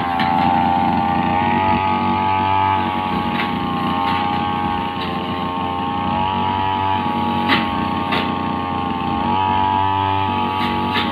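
Riu two-stroke brush cutter engine running at high speed, its pitch dipping slightly a couple of times. There are a few sharp ticks over it.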